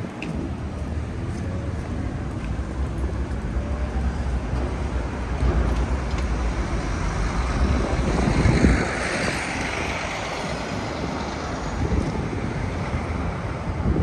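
City street traffic noise with wind rumbling on the microphone. A vehicle passing swells to the loudest point about eight to nine seconds in.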